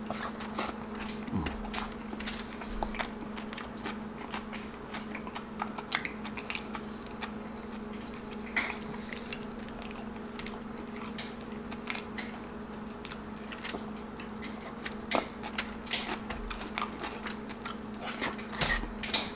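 Close-miked chewing of beef stew and rice: wet mouth clicks and smacks at an uneven pace, over a steady low hum.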